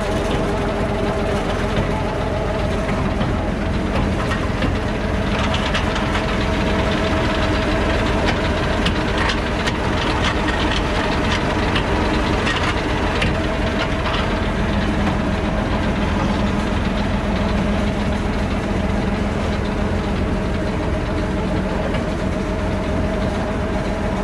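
Diesel engine of a Thaco Forland FC950 4WD log truck running steadily under load as it climbs a muddy forest track with a full load of acacia logs. Irregular clanking and rattling from the truck is heard through the middle part.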